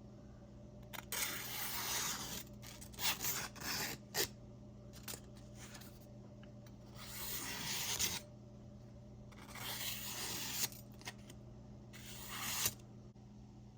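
Intermittent rubbing and scraping in about five short stretches of a second or so each, over a faint steady low hum.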